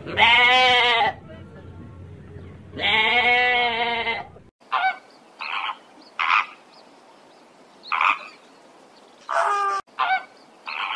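A sheep bleats twice: two long baas about two seconds apart. This is followed by a flock of flamingos giving about seven short, goose-like honks at irregular intervals.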